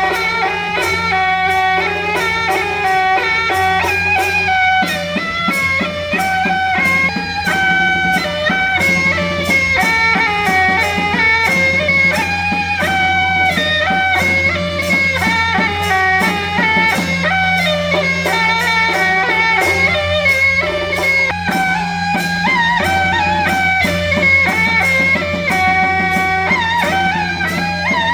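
Music: a plucked-string melody, guitar-like, over sustained low notes and a steady percussive beat.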